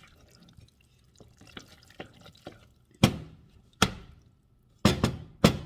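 Cooking utensil knocking sharply against a pot four times in the second half, after a few seconds of soft clicking from stirring.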